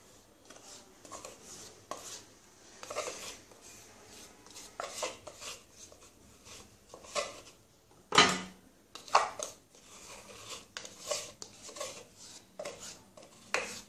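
Metal spoon scraping tomato paste out of a plastic tub and knocking against a steel mixer-grinder jar: a run of irregular scrapes and clinks, the loudest about eight seconds in.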